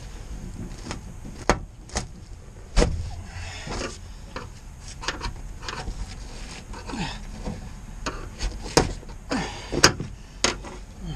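Irregular knocks, clicks and scraping of hand work inside a stripped van, with a heavier thump about three seconds in and short scrapes between the knocks.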